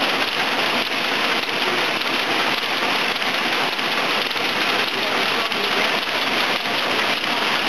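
Automatic through-hole component insertion machine running, a steady, dense clatter of rapid mechanical clicks.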